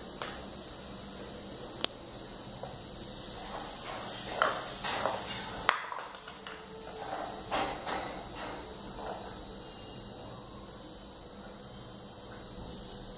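Plastic toy dishes, cups and bowls clicking and knocking together as they are picked up and set down, in scattered single taps and a few quick clusters, loudest about halfway through. Twice in the second half, a short run of rapid, high chirps.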